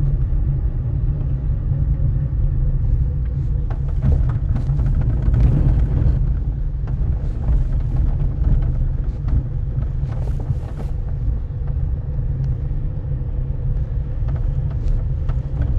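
Car driving slowly, heard from inside the cabin: a steady low rumble of engine and tyres, with a faint steady hum and scattered light ticks.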